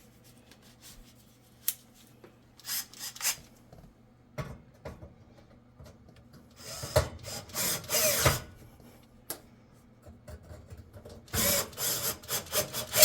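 Power drill-driver running in three short spurts, driving in the screws that hold an oven's burner cover, with a few clicks between.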